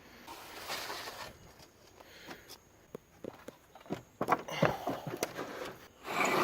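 Wooden pallet being handled and moved: a scraping rustle about half a second in, then a series of sharp wooden knocks and clatters, and a louder scrape near the end.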